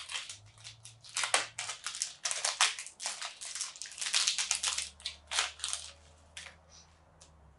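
A cardboard blister pack of trading cards being torn and crunched open by hand: a quick, uneven run of crackling rips and crunches that dies down about six seconds in.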